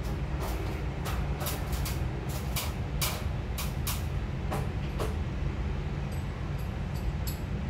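Scattered light clicks and knocks, irregularly spaced, from hand work on a wooden drop-ceiling frame overhead, over a steady low rumble.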